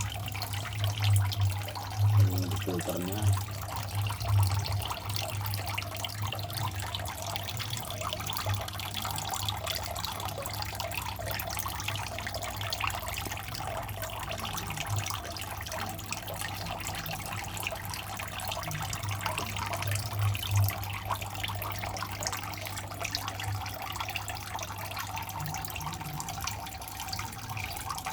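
Steady trickling and splashing of water from a small aquarium filter pump circulating a turtle pond, over a continuous low hum.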